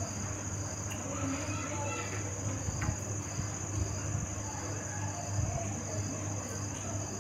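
Crickets trilling steadily and high-pitched over a low steady hum, with faint voices murmuring underneath.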